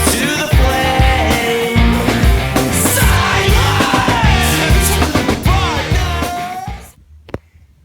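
Rock music with singing, cutting off suddenly about seven seconds in, followed by a single click.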